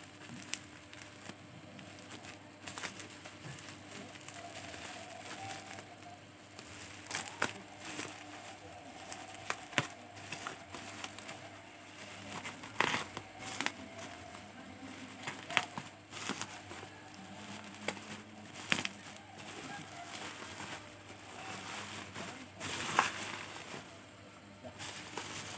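Plastic packaging crinkling and rustling, with scattered clicks and taps, as glitter pens are unwrapped and handled.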